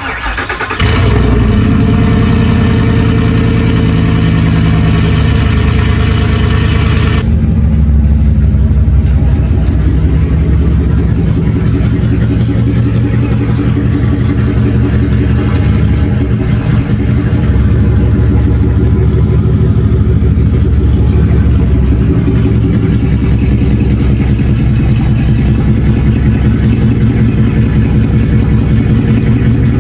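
Pickup truck engine running loudly and steadily with a deep exhaust note. About seven seconds in, the higher-pitched part of the sound drops away, leaving mostly the low engine sound.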